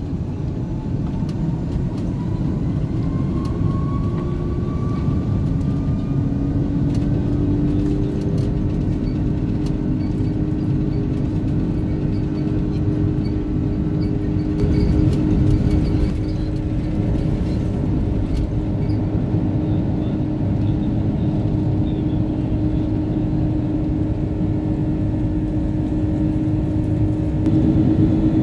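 Airbus A330-300 jet engines heard from the cabin, their whine rising over the first several seconds and then holding steady, over a loud, continuous low rumble.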